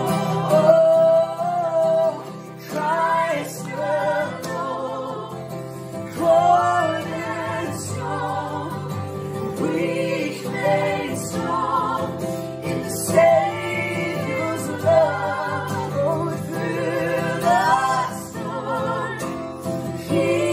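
Worship song performed by a man and two women singing together over a strummed acoustic guitar.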